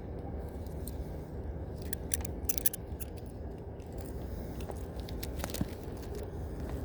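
Shimano 22 Stella 4000XG spinning reel being cranked on a retrieve under lure load: a steady low rumble with a few sharp clicks, about two to three seconds in and again near the end. The owner reports this reel knocking (kotokoto) with vibration felt in the hand whenever a tension-loaded lure such as a vibration lure is wound in.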